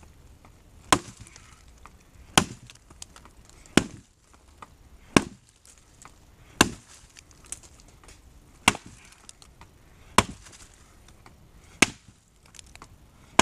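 Gränsfors Bruks Small Forest Axe chopping into a log: eight sharp strikes in a steady rhythm, about one every one and a half seconds, with faint ticks of wood chips between them.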